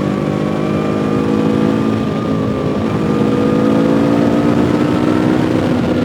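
2017 Yamaha R3's parallel-twin engine running at steady road revs, its pitch easing slightly and then rising a little around the middle.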